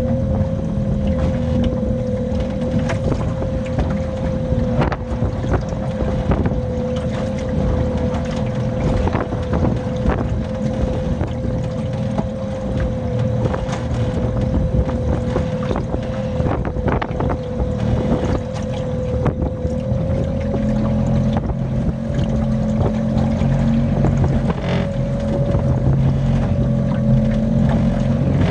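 A steady motor-like drone with a constant whine that rises slightly in pitch about twenty seconds in, with frequent knocks and rattles and wind buffeting the microphone.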